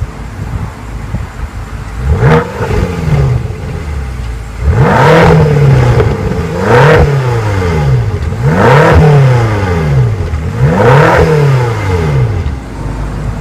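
2015 BMW M6 Gran Coupe's 4.4-litre twin-turbo V8 revved while parked: a short blip about two seconds in, then four loud revs about two seconds apart, each rising and falling in pitch, before it drops back to idle near the end.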